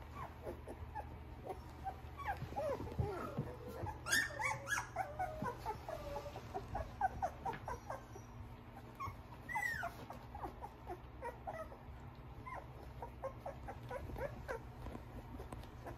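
A litter of young Australian Shepherd puppies whimpering and squeaking, with many short high-pitched cries overlapping. The cries are busiest about four to six seconds in and again around ten seconds, over a steady low hum.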